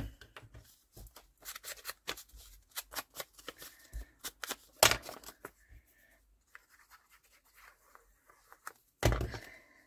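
Paper scraps being handled for a collage: scattered short rustles, crinkles and light taps as pieces are picked up and laid on the page, with a louder thump about nine seconds in.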